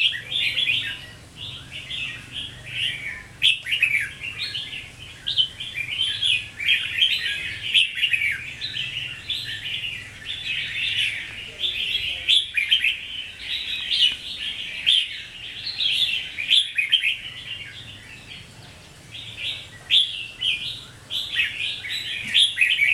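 Red-whiskered bulbul singing and chattering, a fast, dense run of bright chirps with only brief gaps.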